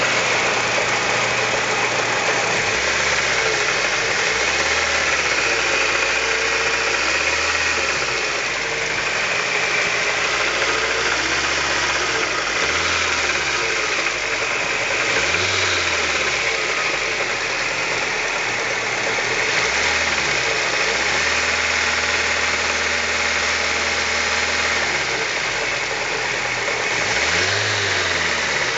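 Daewoo Espero engine running with a knock from the power steering pump: the sign of a worn bearing in the pump.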